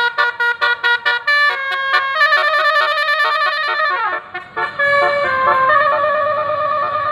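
Bus telolet basuri multi-tone horn playing a melody: a quick run of short, staccato notes, then longer held notes, with a downward slide in pitch about four seconds in before the tune picks up again.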